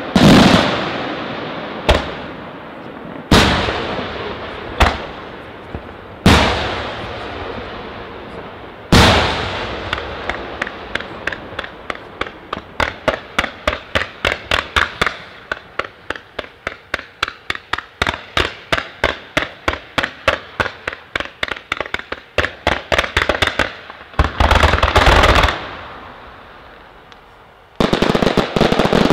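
Aerial fireworks shells exploding, each bang ringing out and dying away, one every second or two at first. Then comes a long run of rapid reports, several a second, for over ten seconds. A dense cluster of bursts follows, and after a short lull one more loud burst comes near the end.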